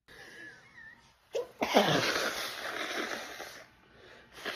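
A woman sneezing in a sneezing fit typical of allergic rhinitis: a sharp catch of breath about a second and a half in, then a loud sneeze whose noisy rush trails on for about two seconds, and another short burst near the end.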